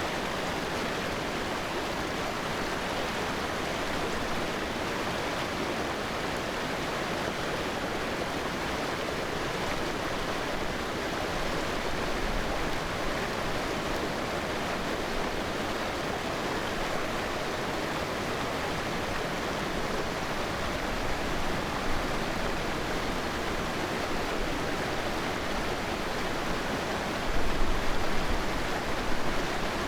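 Steady rush of a flowing stream, an even, unbroken hiss of moving water. A low rumble swells briefly near the end.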